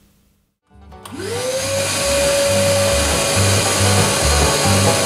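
Benchtop drill press with a sanding drum in its chuck starting up about a second in: the motor's whine rises quickly, then holds steady. Background music with a changing bass line plays underneath.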